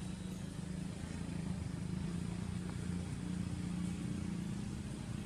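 A steady low hum over constant background noise, with no distinct event standing out.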